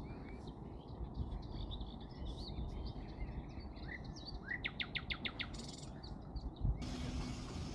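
Wild birds chirping with short rising calls, including a quick run of about six notes around the middle. Near the end a steady high insect hiss starts abruptly, over a low rumble.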